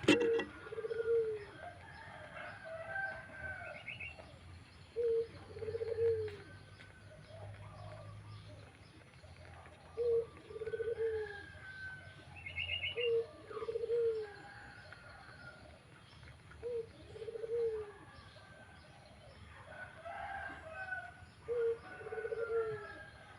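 A pigeon cooing: a short note followed by a longer coo, repeated six times about every four to five seconds. Higher chirps and two short trills from other birds come between the coos, and there is a sharp click at the very start.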